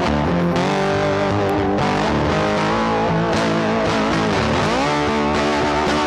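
Background rock music led by a distorted electric guitar, with sustained notes and sliding pitch bends a few seconds in.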